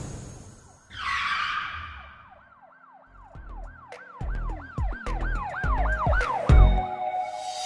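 A whoosh about a second in, then a siren yelping in quick rising-and-falling sweeps, about three a second, over deep bass hits that come in and grow more frequent. Near the end the siren gives way to a held tone.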